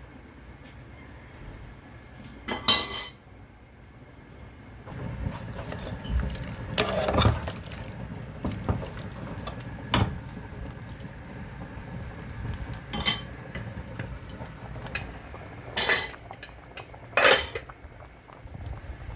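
Cooking pots and metal utensils clinking and being handled, with about five sharp loud clinks spread through a steady low background.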